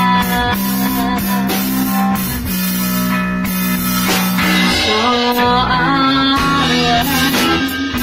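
Live band playing a slow blues song: a woman singing over electric guitar and drum kit.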